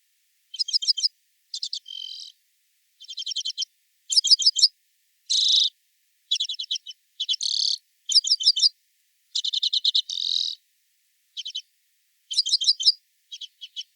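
Redpoll giving its quiet trill: short bursts of rapid repeated notes, one every second or so, with brief gaps between.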